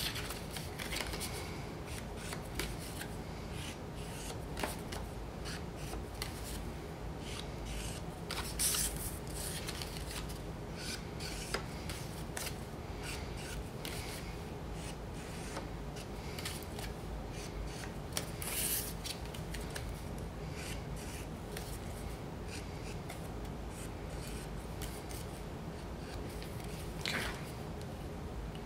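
Marker pen tip rubbed along the edges of cardstock pieces, making faint scratching strokes, with the card sliding and rustling as the pieces are handled and a few louder swishes of paper.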